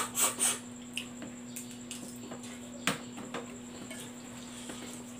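Eating sounds: a few short mouth noises at the start, then scattered light clicks of a plastic fork against a plate, with one sharper clink about three seconds in, over a faint steady hum.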